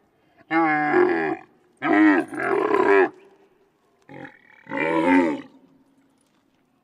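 Dromedary camels calling: a run of drawn-out, wavering calls about a second each, with a short one about four seconds in.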